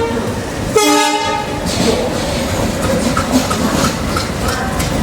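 Indian train horn sounding one short blast about a second in. It sits over the steady running noise of a train, with scattered clicks.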